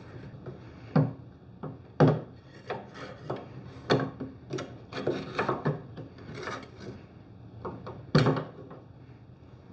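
Knife blade scraping and prying under a decorative molding on a wooden vanity top: irregular scrapes, clicks and knocks, the sharpest about two seconds in and just after eight seconds.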